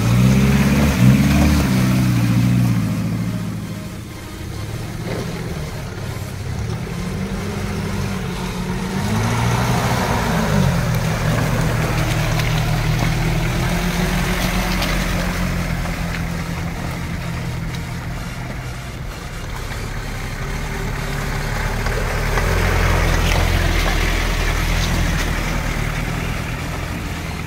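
Engines of small off-road 4x4s, a Suzuki Jimny among them, driving past one after another. Revs rise and fall in a surge at the start and another about ten seconds in, then run more steadily as further vehicles follow.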